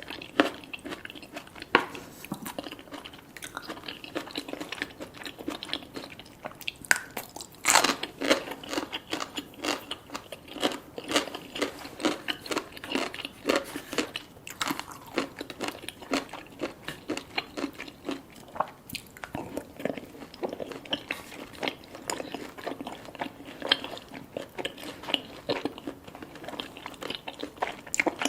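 Close-miked eating: a person biting and chewing food, with many quick crunches and wet mouth sounds in an irregular stream.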